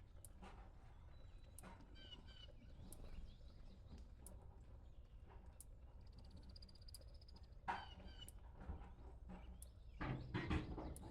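Faint short animal calls and scattered sharp clicks over quiet outdoor background, with a louder cluster of sounds about ten seconds in.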